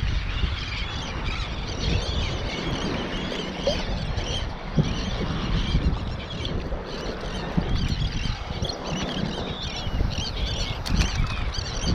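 A large flock of seabirds calling continuously over a crowded feeding spot, many short wavering cries overlapping, over a steady rush of surf and wind.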